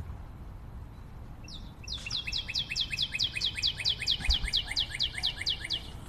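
Cockatiel calling in a rapid series of short, sharp, high notes, each dropping in pitch, about five a second, starting about two seconds in.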